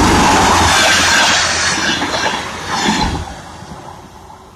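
DR1AM diesel multiple unit passing close at speed, its wheels running on the rails with a dense rushing noise. Loud at first, with a brief swell about three seconds in, then fading as it recedes.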